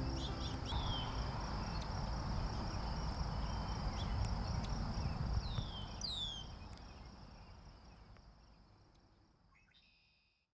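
Summer field ambience: an insect trills steadily and high, a few birds give quick falling chirps, and a low rumble runs underneath. It all fades out over the last few seconds.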